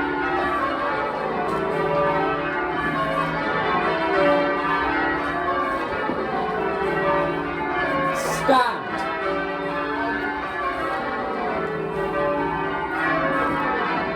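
A ring of twelve church bells, the back ten cast in 1937, ringing rounds: each bell strikes in turn from treble down to tenor, the downward run repeating steadily. About eight seconds in there is one short sharp noise with a quickly falling pitch over the bells.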